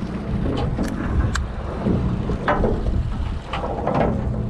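Wind buffeting the microphone on an open boat over a steady low rumble, with a few sharp clicks and knocks from hands handling a conventional saltwater fishing reel.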